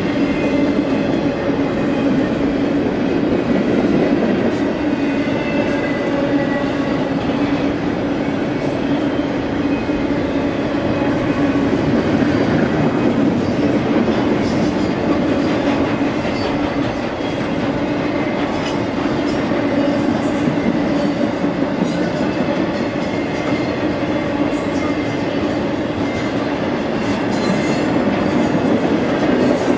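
BNSF intermodal freight train's double-stack and container cars passing, their steel wheels rolling on the rails in a steady, unbroken rumble.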